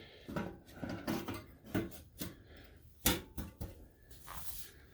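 Irregular clicks, knocks and rustling of hands handling parts, with one sharper knock about three seconds in.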